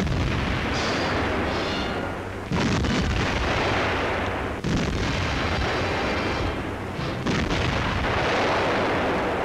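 Heavy artillery gun firing: four loud blasts about two and a half seconds apart, each trailing off into a long rumble.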